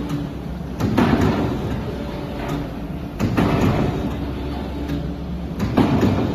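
Steel tile roll forming machine running with a steady hum. Three times, about two and a half seconds apart, comes a sudden rushing surge with a sliding, clunking quality as the line cycles.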